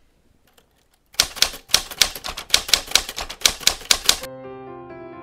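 Typewriter keystroke sound effect: a quick run of key clicks, about six a second, for about three seconds. Soft keyboard music begins near the end.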